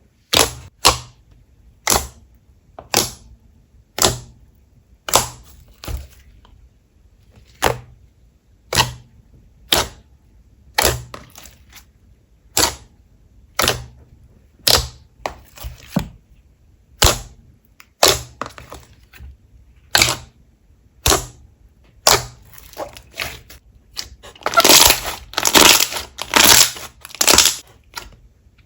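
Slime being pressed and played with, giving sharp pops about once a second. In the last few seconds they turn into a fast, dense run of crackling pops.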